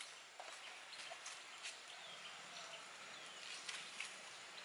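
A small open wood fire being tended by hand, with faint, scattered crackles and ticks.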